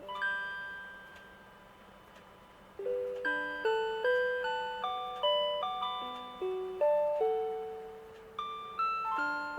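1997 Rhythm Clock 'Melody Club' melody alarm clock playing a J-pop tune from its swappable song cassette as simple electronic chime-like notes with chords, each note struck and fading. A chord rings out and dies away for a couple of seconds, then the melody picks up again with quicker notes about three seconds in.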